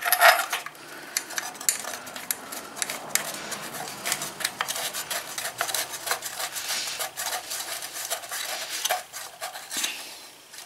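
Steel muffler being fitted by hand onto a Briggs & Stratton small engine: a loud metal knock at the start, then an irregular run of small metallic clicks and scrapes as the parts are handled and seated.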